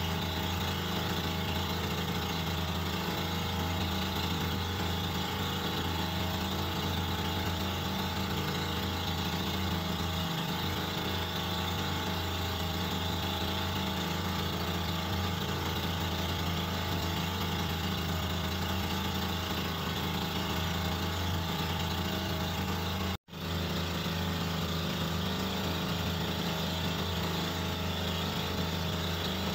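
Outrigger boat's engine running steadily at cruising speed, a constant hum, with the sound cutting out for an instant about three-quarters of the way through.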